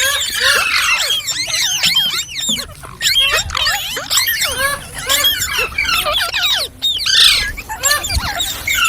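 Ringneck parrot chattering: a fast, unbroken run of short squeaky notes sliding up and down in pitch, with a louder squawk about seven seconds in.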